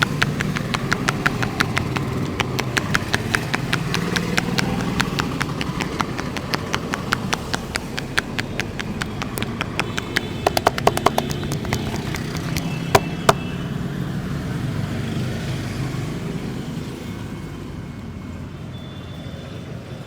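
Rapid rhythmic tapping of hands on a head during a head massage, several taps a second, fading out after about two thirds of the way. A cluster of sharper cracks comes about halfway through and two louder ones follow shortly after. A low hum of street traffic sits underneath.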